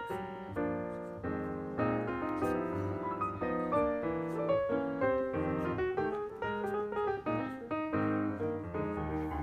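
Background piano music: a quick, continuous run of notes.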